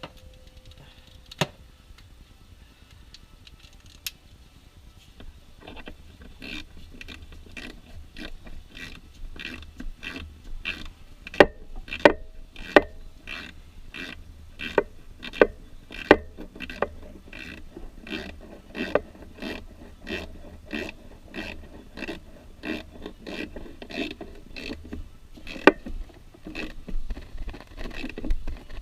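Ratchet wrench clicking in a long run of short strokes, about two clicks a second of uneven loudness, as the starter motor's mounting bolts are tightened. The run starts about six seconds in, after two lone clicks.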